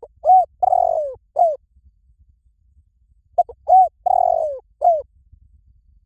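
Spotted dove cooing: two phrases of about four coos each, about three seconds apart. The longest coo in each phrase falls in pitch.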